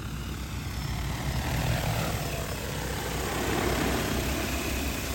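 DJI Agras T20 agricultural spraying drone's rotors whirring in flight, growing louder through the middle and then easing off.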